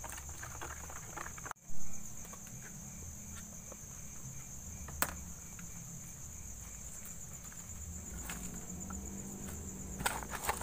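Insects chirring in a steady, high, continuous drone. Over it come soft handling sounds of batter being mixed by hand in a plastic bowl and shredded vegetables being tipped in. There is a brief loud thump just under two seconds in and a sharp click about five seconds in.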